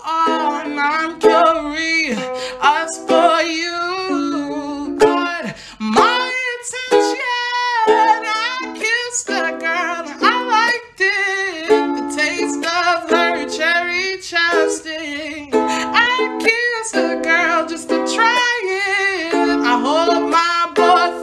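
A woman singing a pop song over a strummed string accompaniment.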